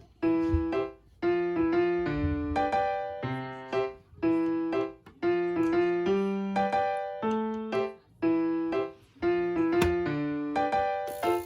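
Background music: a bright electric-piano tune in short repeating phrases, the notes starting sharply and fading.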